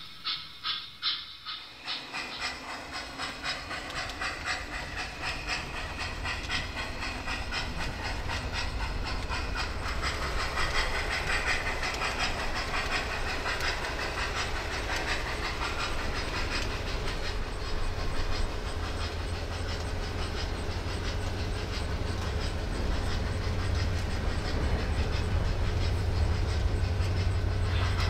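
Model train running on the layout: a quick, even clicking at first, then a steady low rumble that grows louder over the next several seconds and holds.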